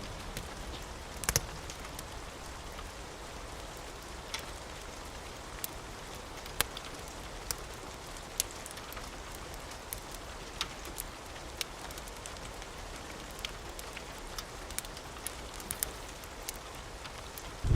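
Steady rain hiss with the sharp, scattered pops and crackles of a wood fire, roughly one a second, the loudest about a second in.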